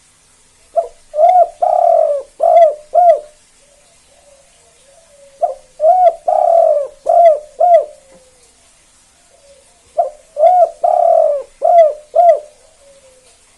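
Spotted dove (tekukur) of the 'kuk 2' type singing its cooing song three times, about four and a half seconds apart. Each phrase is two or three short coos, a longer drawn-out coo, then two short closing 'kuk' notes.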